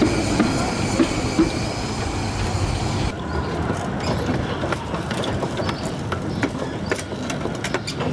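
A miniature 15-inch-gauge steam train at a platform. For about three seconds the locomotive gives a steady hiss with high ringing tones. After a cut, the passenger coaches roll slowly past with scattered clicks and clacks from the wheels on the rails.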